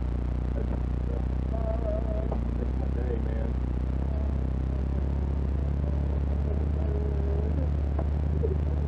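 Off-road truck's engine and drivetrain droning steadily at low speed along a rough dirt trail, heard from inside the cab.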